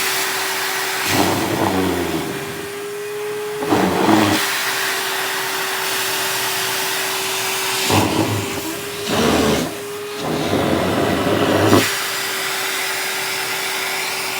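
Vacuum cleaner running, with a steady motor whine over a hiss. It gets louder and fuller about five times, in stretches of half a second to a second and a half.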